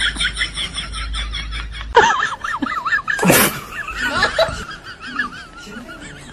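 High-pitched laughing: a quick run of repeated giggles, then wavering laughter after about two seconds, with a short sharp burst a little over three seconds in.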